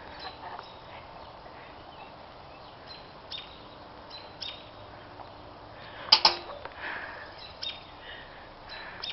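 Short, sharp bird calls repeated every second or so over steady outdoor hiss, with one much louder sharp click or call about six seconds in.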